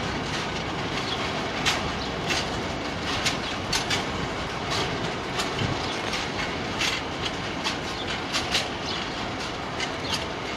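Freight train of cement tank wagons rolling steadily past, a continuous rumble with repeated sharp wheel clicks on the rails.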